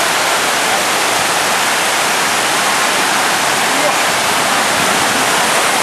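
Waterfall rushing in a loud, steady roar of falling water, close by.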